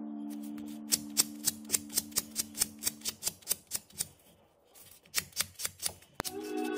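Quick hand-sanding of a small silver pendant with abrasive paper, in short scratching strokes of about four a second. The strokes stop for a moment about four seconds in, then resume. A held music chord underneath fades out about three seconds in, and music comes back near the end.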